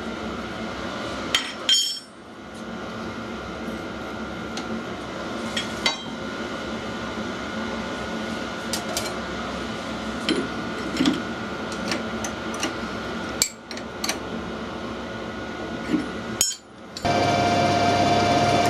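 Metal tools clinking and tapping, a dozen or so sharp knocks spread irregularly over a steady machine hum with a fixed whine. Near the end a louder machine starts running with a steady tone.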